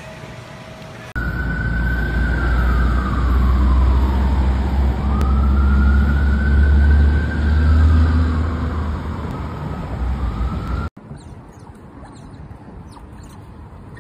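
Emergency vehicle siren wailing, its pitch slowly falling and rising, over a deep rumble. It starts about a second in and cuts off abruptly a few seconds before the end.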